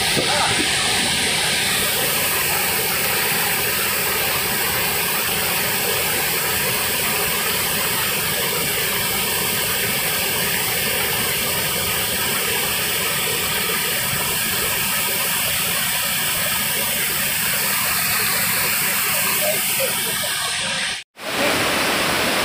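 Steady rush of river water pouring over a weir and streaming across its shallow apron, a continuous hiss that drops out for an instant near the end.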